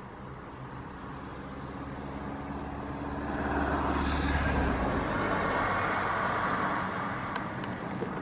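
Boeing 737-800's CFM56 jet engines rumbling as the airliner rolls along the runway after landing. The sound swells to a peak about four to five seconds in, then eases off.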